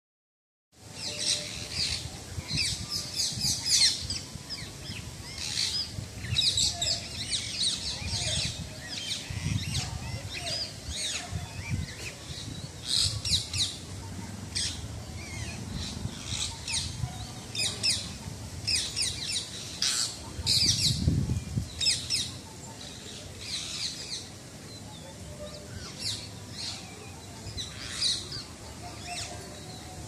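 Parrots and a woodpecker giving repeated bursts of rapid, high-pitched calls: alarm and mobbing calls at land monitors climbing their coconut tree.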